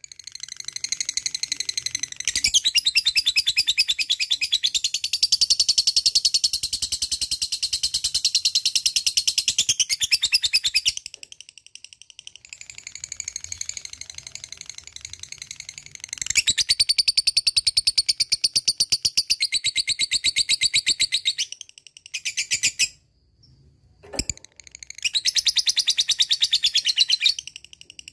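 Lovebird singing 'ngekek': long runs of very rapid, high chattering trill broken by short pauses. The first run lasts about ten seconds, then comes a softer stretch, and after that several shorter runs follow close together.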